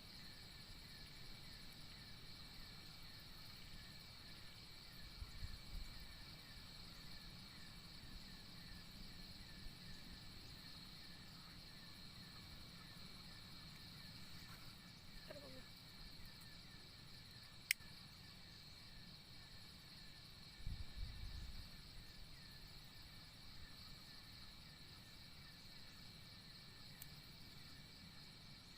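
Faint, steady chorus of insects trilling at a high pitch, with fast, even pulses. Low thumps come about five seconds in and again past two-thirds through, and a single sharp click sounds just after the middle.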